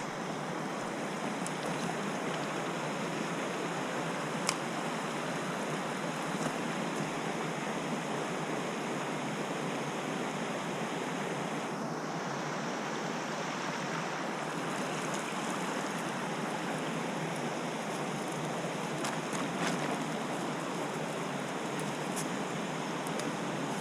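Mountain stream water rushing steadily, with a few faint clicks.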